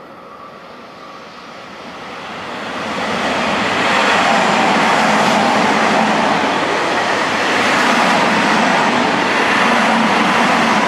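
Electric commuter train approaching and passing on the line, its running noise growing louder over about two seconds and then staying loud and steady.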